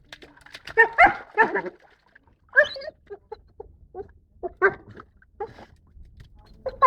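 Dog barking and whining with its muzzle in a water tank, the calls coming out as bubbling sounds, in a string of short bursts that are loudest in the first second and a half.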